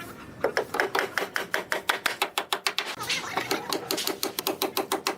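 Rapid, even knocking of a tool on wood, about five or six strokes a second.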